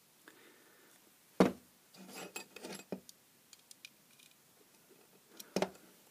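Sharp clicks and light metallic rattling from a screwdriver and its bit set being handled and set to a small screw, with a loud click about a second and a half in, a run of small clicks and rattles just after, and another sharp click near the end.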